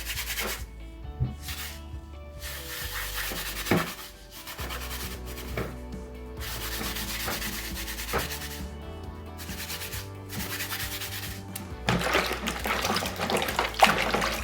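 Steel wool with soap scrubbing a freshly etched copper-clad circuit board in repeated strokes with short pauses, rubbing the laser-printer toner off the copper traces. The scrubbing gets louder and denser near the end.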